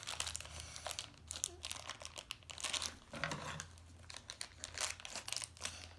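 Thin plastic toy wrapper crinkling and crackling in irregular spells as it is handled and pulled open by hand.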